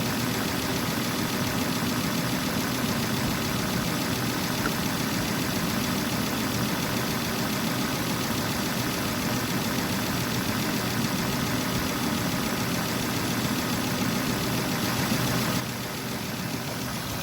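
2000 Volvo V70's engine idling steadily, with the sound stepping down slightly near the end.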